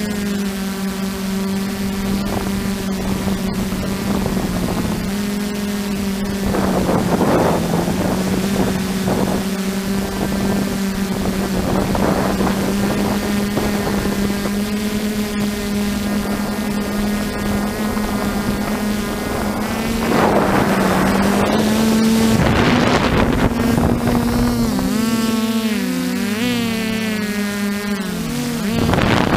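DJI F550 hexacopter's electric motors and propellers buzzing steadily, heard from a GoPro on the frame, the pitch dipping and wobbling with throttle changes, most in the last few seconds. Gusts of wind noise on the microphone rise about seven seconds in and again past twenty seconds.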